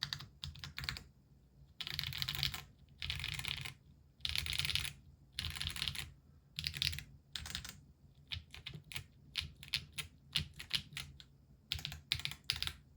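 Weikav Record A67 aluminium-cased mechanical keyboard with stock-lubed Gateron Mini i switches and Drop DCX keycaps being typed on. Quick runs of fast keystrokes give way, about eight seconds in, to single presses at about three a second.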